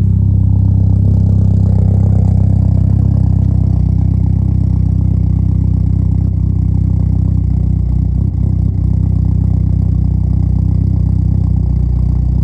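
1997 Mitsubishi Eclipse GSX's turbocharged 2.0-litre four-cylinder engine idling steadily, with a slight dip in level about eight seconds in.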